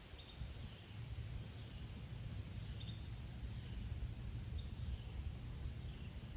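Steady high-pitched insect drone over a low rumble, with a few faint short chirps scattered through.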